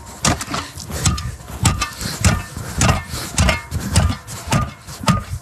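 Repeated blows of a long-handled hacking tool chopping into pond ice, about two to three strikes a second, each a sharp crack.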